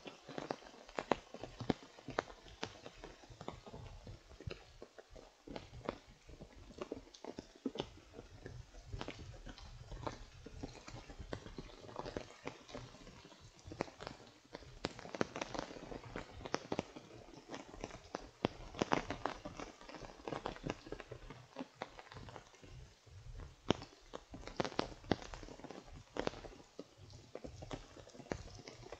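Footsteps crunching and scuffing down a wet stepped trail, in an uneven run of taps, with raindrops tapping on an umbrella close by.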